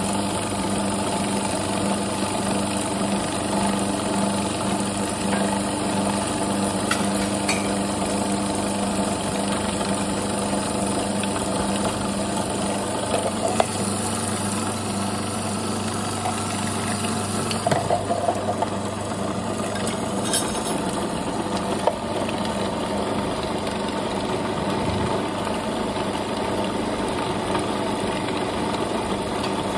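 Food processor motor running steadily, its blade churning roasted sesame seeds and jaggery into a sticky paste. The hum changes a little about two-thirds of the way through, and a few short knocks sound in the middle.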